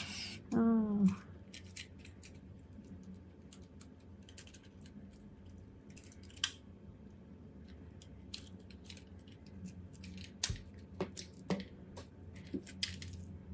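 Scattered light clicks and taps of small hand tools working on a phone, with a short tone falling in pitch about half a second in.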